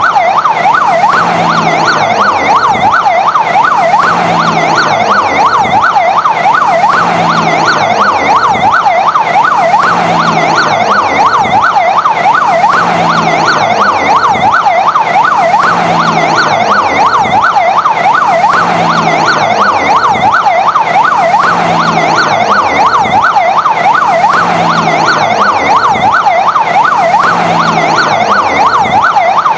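Fire engine siren sounding a fast, loud yelp, its pitch sweeping up and down about four times a second without a break.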